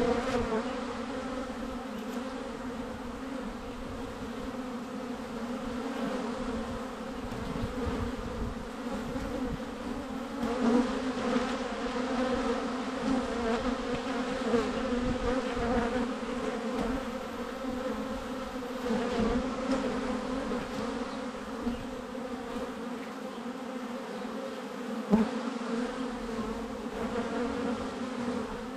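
Honeybees buzzing in front of their hive entrance during orientation flights: a steady many-voiced hum that swells and fades as bees fly close past the microphone.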